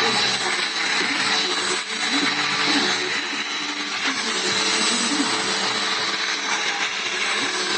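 Vacuum cleaner running steadily at full power, a loud even rushing with a fixed high whine from its motor. Faint voices are underneath.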